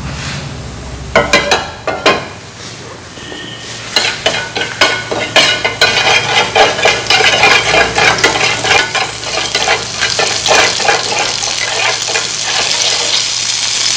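Mustard oil with rock salt heating in a plate on a gas stove: a few light clicks at first, then from about four seconds in a dense crackling sizzle that builds as the oil gets hot.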